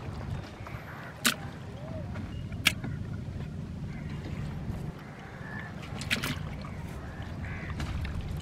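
Fishing boat's engine running steadily with a low hum. Two sharp knocks come in the first three seconds, and a few clicks about six seconds in.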